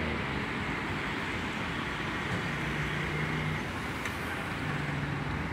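Steady background road-traffic noise, with a low engine-like hum that comes in twice.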